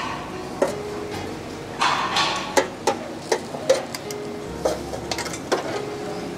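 Irregular metal clanks and a scrape from a long iron hook knocking against the hanging hooks and the metal tray at the mouth of a Denizli kebab oven while it shifts roasted lamb sides. There is a longer scraping rasp about two seconds in and a cluster of quick clanks near the end.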